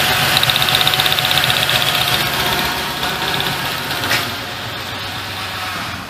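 Ford Ranger 4.0L V6 idling with an even, fast pulsing beat, running on a cylinder that misfires because of a bad spark plug. A short click about four seconds in.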